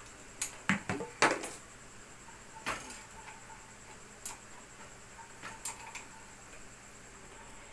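Hand tool clinking and clicking on the motorcycle's front fork as it is tightened: a quick cluster of sharp metal clinks in the first second and a half, then single clicks every second or so.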